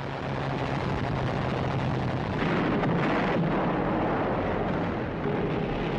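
Battle noise of bombs exploding and guns firing around a warship under air attack, a continuous rumble. A steady low aircraft engine drone underneath fades out about two seconds in as the blasts grow louder.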